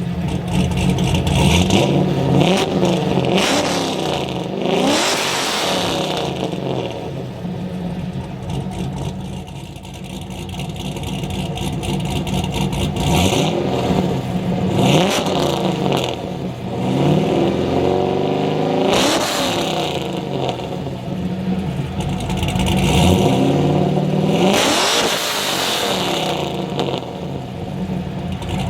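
Car engine running through a 3.5-inch stainless steel exhaust with a custom Hawks/SLP-style muffler and dual 3-inch tips, its pitch repeatedly climbing and dropping back in a series of revs or hard pulls.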